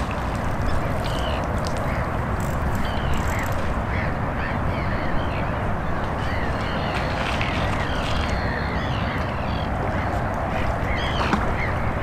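Many short animal calls repeating over and over, set against a steady background noise.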